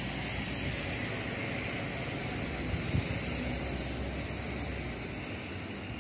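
Tram approaching along the rails: a steady rolling rumble with hiss over it, and a single knock about three seconds in.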